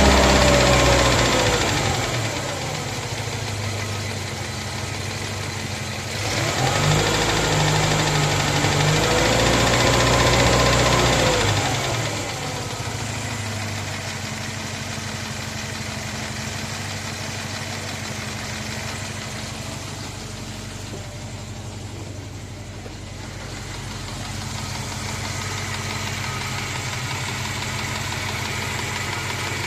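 Moskvich 2140's UZAM four-cylinder engine coming down from a rev, revved up again about six seconds in and settling back to idle about halfway, then idling steadily, with a knock in the engine.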